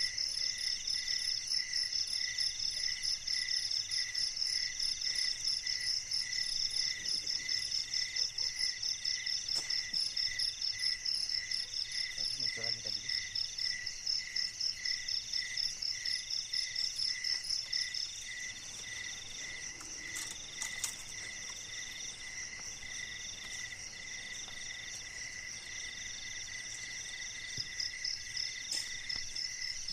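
Night chorus of crickets and other insects: several steady, fast-pulsing trills at different pitches sounding together. The loudest, highest trill drops out about two-thirds of the way through and starts again near the end.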